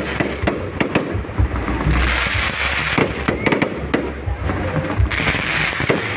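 Fireworks display: a rapid, irregular series of sharp bangs and crackles over a continuous rumble.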